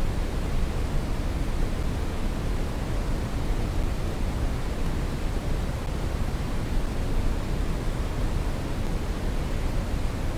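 Steady brown noise: an even, deep rushing hiss weighted toward the bass, without change.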